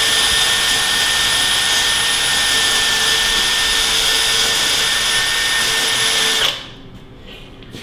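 Cordless drill running at a steady speed with a high whine, then stopping abruptly about six and a half seconds in.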